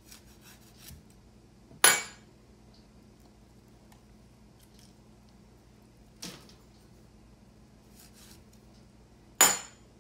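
Sharp clacks of a kitchen knife and utensils knocking against a lava-stone mortar as calamansi are cut and squeezed over it: two loud clacks, about two seconds in and near the end, and a softer one a little past six seconds, with a few faint clicks in the first second.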